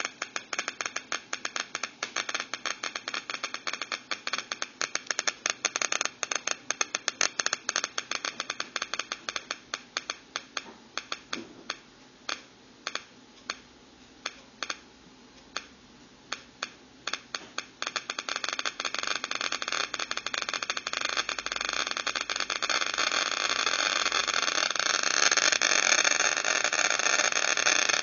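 Simulated Geiger-counter clicking from an Arduino Uno driving a small loudspeaker: irregular random clicks, fast at first, thinning to a few scattered clicks about halfway, then speeding up into a dense crackle that grows louder toward the end. The click rate is changed by turning a potentiometer knob.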